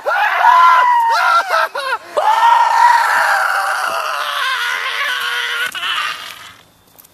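A young man screaming loudly: several short yells in the first two seconds, then one long drawn-out scream that trails off about six seconds in.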